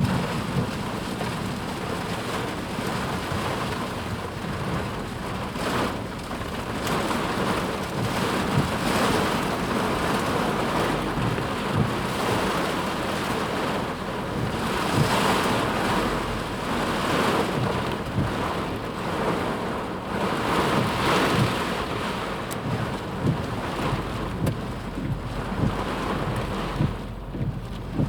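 Flash-flood torrent rushing: a loud, steady noise of running water that swells and eases every few seconds. In the last few seconds a run of short, dull low thumps sits under it.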